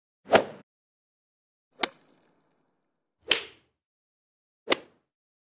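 Four sharp, single impacts about a second and a half apart, each dying away within a fraction of a second, with dead silence between them.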